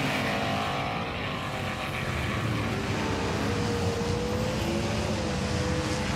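Diecast toy cars rolling fast down a plastic race track: a steady rumble of metal wheels on the track, with a faint whine that slowly drifts in pitch.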